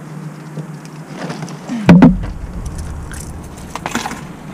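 Car cabin on the move: a steady low engine and road hum, with a loud thump about two seconds in, followed briefly by a low rumble, and light rattling clicks near the end.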